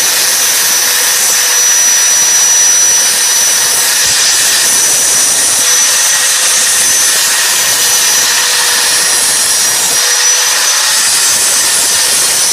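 Angle grinder running steadily at full speed, a loud hiss with a thin high whine over it, cutting off sharply at the end.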